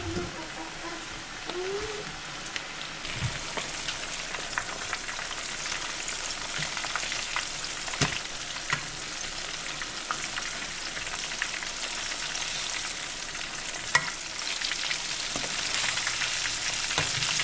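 Breaded catfish pieces frying in hot oil in a skillet: a steady sizzle, growing a little louder near the end, with a few sharp clicks of a utensil against the pan.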